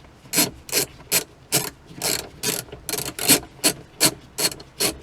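Hand ratchet wrench clicking as the steering wheel's mounting bolts are tightened, in short even strokes about two to three times a second.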